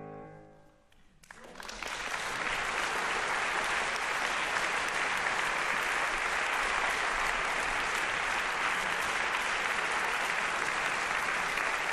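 The last chord of a grand piano dies away. About a second in, an audience breaks into steady applause that carries on.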